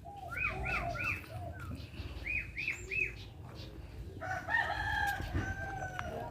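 Birds calling: quick runs of three short chirps, then one longer call of about two seconds from around four seconds in.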